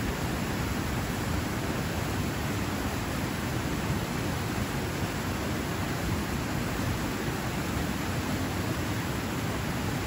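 Small river waterfall pouring between rocks into a pool: a steady, deep rush of falling water, unchanging throughout.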